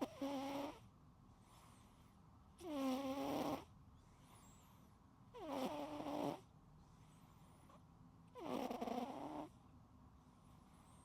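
A sleeping cat snoring: four short, pitched snores at an even pace of about one every three seconds.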